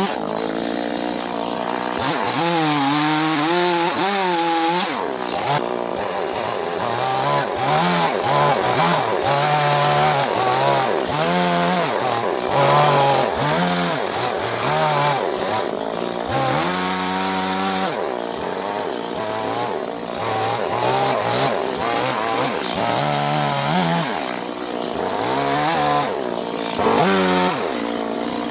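Stihl two-stroke chainsaw revving up and dropping back toward idle again and again as it makes short carving cuts into a birch log.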